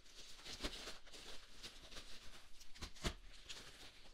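Faint handling of small packaged items, quiet rustling with a few soft taps or clicks scattered through.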